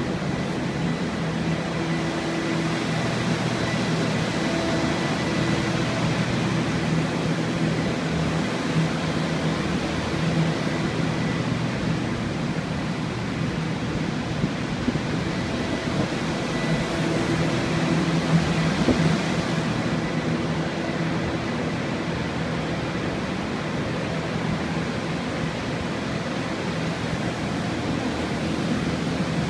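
Water-damage drying equipment, several air movers and dehumidifiers, running together: a steady rush of air with a low hum that swells and fades.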